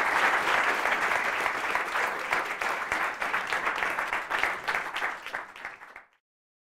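Audience applauding, the clapping slowly thinning and fading, then cutting off suddenly about six seconds in.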